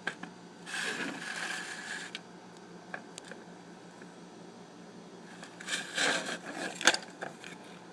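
Handling noise: a scrape lasting about a second and a half, then scattered clicks and taps, with a sharper cluster of clicks and rubbing near the end.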